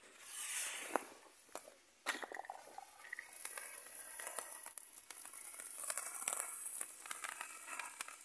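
Small silver-rain ground firework burning, hissing and crackling as it sprays sparks. It starts with a fizz, then about two seconds in jumps suddenly to a louder, steady hissing spray with crackles.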